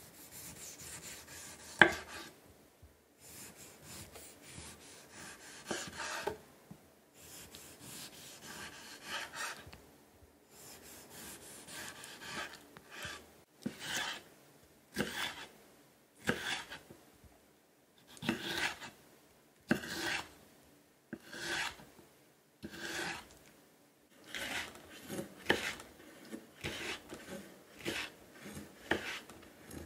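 Chef's knife cutting a fruit tomato on a wooden cutting board: each stroke is a short rasp through the skin and flesh ending in a knock of the blade on the board. The cuts come about every second or two, the sharpest knock about two seconds in, and quicken into dicing chops near the end.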